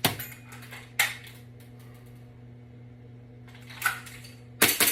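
Elite Force 1911 airsoft pistol being fired: about four sharp, separate cracks spaced unevenly, one at the very start, one about a second in, and two close together near the end.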